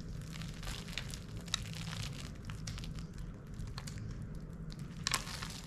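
Damp sprouted oat seeds shaken out of a plastic container onto potting mix in a seed tray: light rustling with scattered small clicks, and a louder rattle about five seconds in.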